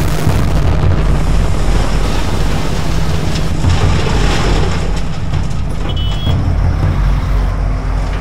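Heavy truck driving on a dirt and gravel road: a steady, loud low engine rumble with tyre and road noise, and wind on the microphone.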